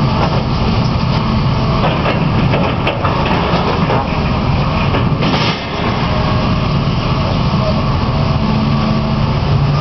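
Hitachi Zaxis 350LC-3 excavator's diesel engine running steadily under work, with knocks and clatter of metal debris as its bucket picks through the demolition pile, several sharp knocks two to three seconds in and another just past five seconds.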